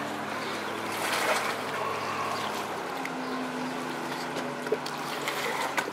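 Water lapping and trickling around the hull of a capsized RC speedboat, with a steady low hum that steps up slightly in pitch about halfway through.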